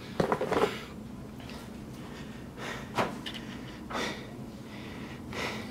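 Hard breathing after a heavy set of barbell back squats: a run of loud, noisy breaths about one a second. A couple of sharp knocks come right at the start.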